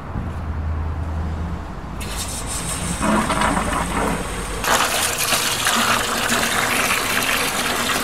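Cold water rushing out of a garden hose and splashing into a plastic bucket, flushing descaling vinegar out of a tankless water heater; the rush comes in about two seconds in and gets louder about halfway through.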